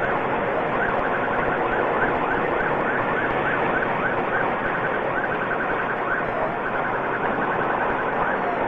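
Police car siren cycling in rapid chirps about three times a second, switching to a faster warble about five seconds in, over steady road and engine noise from the pursuing patrol car.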